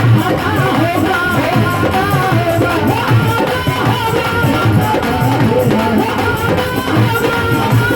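Indian devotional bhajan music: a melody line with a steady hand-drum beat, in a passage with no sung words.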